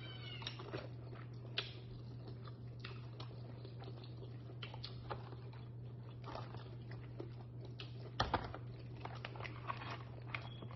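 Eating sounds of boiled lobster: chewing and wet mouth smacks, with scattered small clicks and crackles of lobster shell being picked apart by hand, and a cluster of louder ones about eight seconds in. A steady low hum runs underneath.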